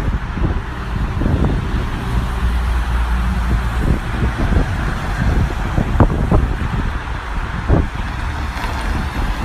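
Car driving in the rain: steady engine and tyre noise, with a few short knocks about six and eight seconds in.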